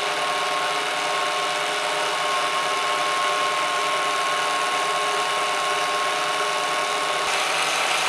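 Bernina Record 930 sewing machine's motor running at a steady speed to wind a bobbin, with a constant high whine. The sewing mechanism is disconnected during winding.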